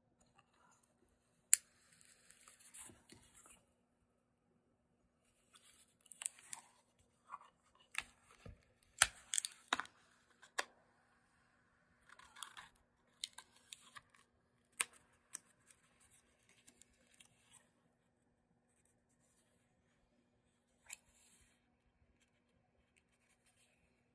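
Paper journal pages being turned and handled: short bouts of paper rustling and sharp clicks come in clusters, with quiet stretches between.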